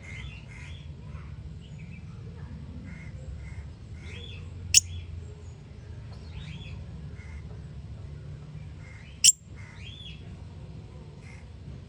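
Small parrot-family birds chirping, with many short, quick calls throughout. Two very short, sharp, loud sounds about four and a half seconds apart stand out above the chirping, over a steady low hum.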